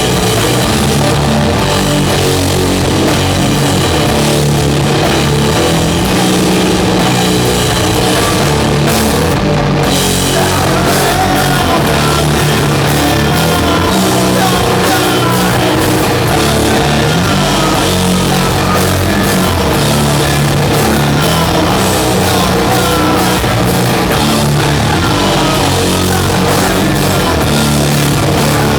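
Doom metal band playing live: heavily distorted guitars and bass holding long, low chords over drums, loud and dense.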